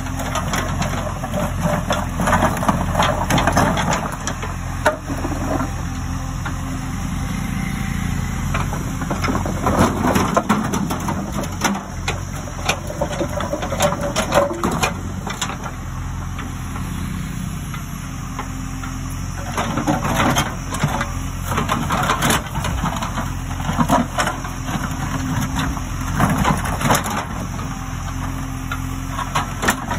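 JCB backhoe loader's diesel engine running steadily while its steel bucket scrapes up and knocks loose interlocking concrete paver bricks, with several bursts of clattering and grinding as concrete blocks knock against each other and the bucket.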